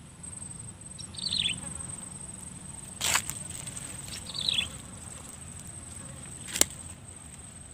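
A steady, high insect drone, with a bird twice giving a short falling run of chirps, about a second in and again around four seconds in. Two sharp clicks come at about three seconds and again later.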